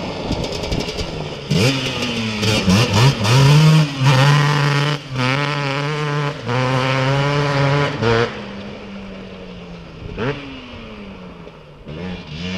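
Racing ATV engines accelerating hard. The pitch climbs over the first few seconds and holds high with a couple of brief breaks, then drops away after about eight seconds. Two shorter revs follow, near ten and twelve seconds.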